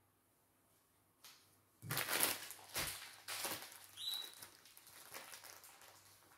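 Rustling and scraping of cardboard thread cards and their packaging being handled and put back, in several irregular bursts starting about two seconds in, with a brief high squeak near the middle.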